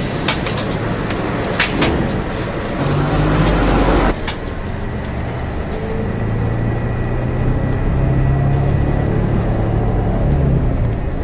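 City bus engine running, heard from inside the passenger cabin, with a few rattles and clicks in the first two seconds. The louder noise cuts off abruptly about four seconds in, and a steady engine hum carries on.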